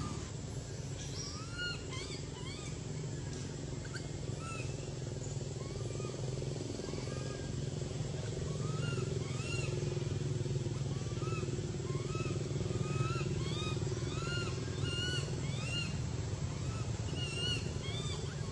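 A steady low motor drone, like an engine running nearby, under many short, high, rising-and-falling animal chirps that come more often in the second half.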